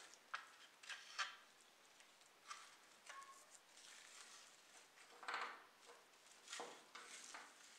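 Faint handling noises of nitrile-gloved fingers turning a rusty die-cast model car body: scattered light clicks and short rustles, the loudest a half-second rustle about five seconds in.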